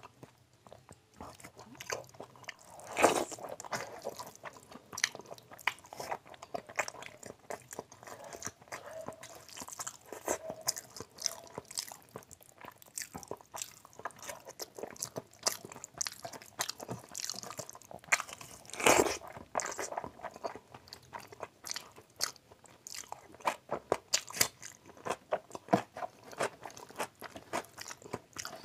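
Close-up eating sounds: a man chewing and smacking his lips on mouthfuls of rice and fatty mutton curry eaten by hand, with the wet squish of rice being mixed with curry on the plate. The sounds come as many quick, irregular clicks and smacks, with two louder sharp smacks about 3 s and 19 s in.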